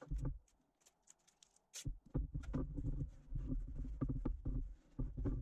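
Hands pressing masking tape down along the rim of a plastic mould and shifting the mould on a tabletop: irregular scratchy rubs and light knocks, busiest in the second half.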